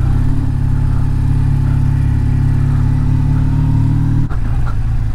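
Motorcycle engine running steadily at low speed, heard from the rider's seat, with a brief drop in the sound about four seconds in.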